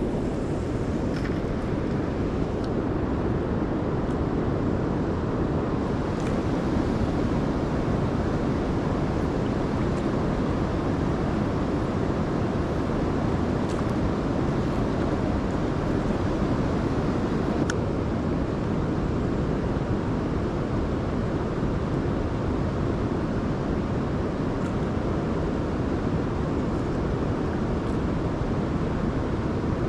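Steady rushing of river water, an even, unbroken hiss.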